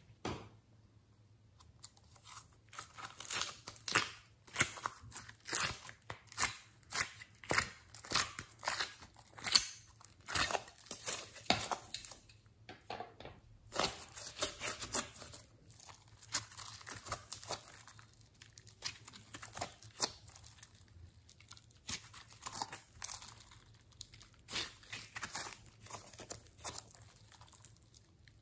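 Glossy slime being squeezed, kneaded and stretched by hand, giving off many irregular sticky pops and clicks, with a short lull about halfway through.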